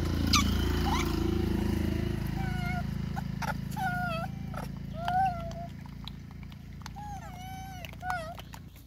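Young rhesus macaques calling: two quick high squeals near the start, then a run of about ten short, clear, wavering cries. A steady low hum runs underneath and stops just before the end.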